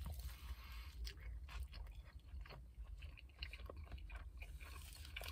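A person biting into a soft breakfast burrito and chewing the mouthful, faint and close, with small irregular mouth clicks.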